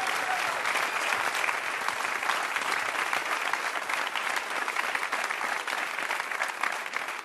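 Audience applauding, a dense steady clapping that thins slightly toward the end.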